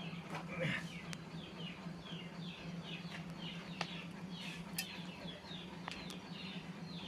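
A bird calling in a run of short, high falling chirps, about two a second, over a steady low hum and a few faint clicks.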